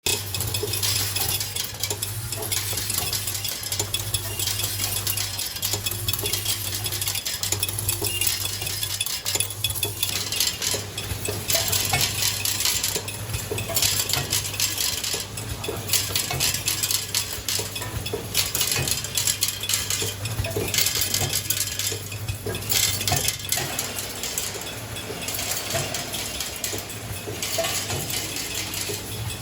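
Screw counting and packing machine running: the vibratory feed plate hums steadily while loose metal screws rattle and clink on it without a break.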